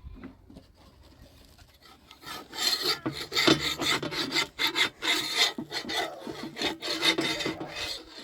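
Loud rasping, scraping strokes repeated in quick succession, starting about two seconds in and cutting off suddenly at the end.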